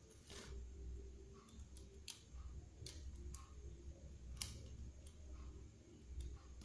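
Faint, scattered sharp clicks of small phone parts and tools being handled during smartphone reassembly, about five over several seconds, over a low steady hum.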